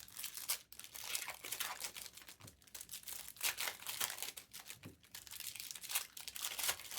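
Trading card pack wrappers crinkling and tearing as packs are opened by hand, in a run of irregular crackles and short rips.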